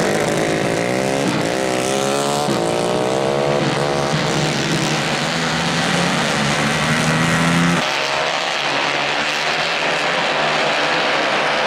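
150 cc racing kart engines at full throttle on a dirt track, the nearest engine's pitch rising and falling through a corner and then holding steady at high revs. About eight seconds in, it drops away suddenly, leaving the fainter drone of several karts running further off.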